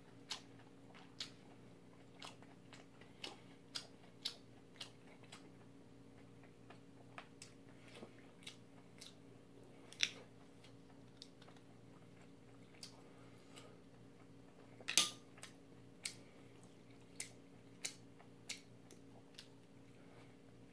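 Close-miked eating sounds: a man chewing noodles with sharp, irregular mouth clicks and the tap of chopsticks, about one or two clicks a second. A faint steady hum runs underneath.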